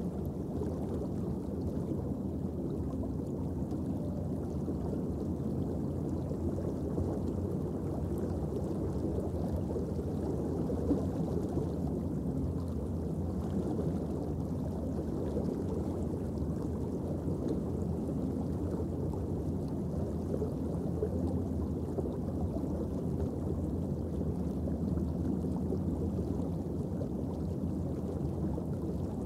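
Steady, muffled underwater ambient noise, heard through a camera sealed in an underwater housing, mostly low in pitch and without distinct events.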